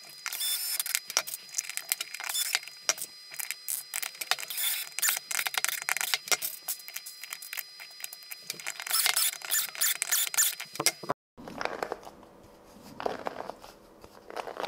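3D-printed flexible-impeller water pump with a TPU impeller, turned dry: rapid, irregular clicking and squeaking as the impeller vanes rub and slap against the housing. It breaks off about eleven seconds in and gives way to a softer rattle.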